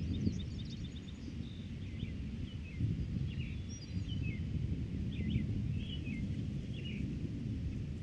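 Wind buffeting the microphones as a steady low rumble, with small birds chirping over it: a quick run of chirps at the start, then scattered single calls.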